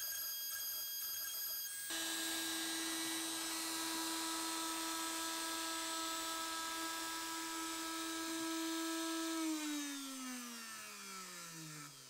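Router spindle on a Shapeoko 3XL CNC router running at steady speed, its sound changing about two seconds in, then switched off at the end of the V-carving job and winding down with a smoothly falling whine.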